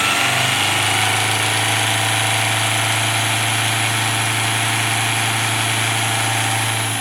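Motor spinning a 3D-printed trigger disk at speed on a test rig: a steady hum with a high, steady whine. Near the end the drive is cut and the whine falls away as the disk slows.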